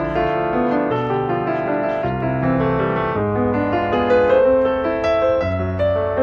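Background piano music playing a gentle melody over chords.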